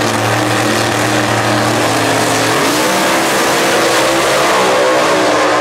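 Top alcohol funny car's engine idling steadily at the starting line, then launching about two and a half seconds in, its pitch sweeping up into a loud full-throttle run down the strip.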